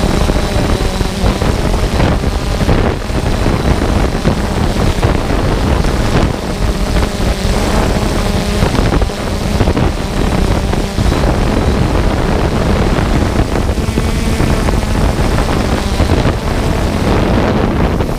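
Multirotor drone's motors and propellers running steadily, heard close up from the camera on the drone, with a steady hum and heavy wind buffeting on the microphone.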